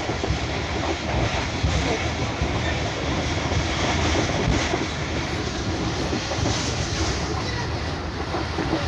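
Subak Raftar Express passenger train running along the line, heard from inside the coach: a steady rumble of wheels on the rails.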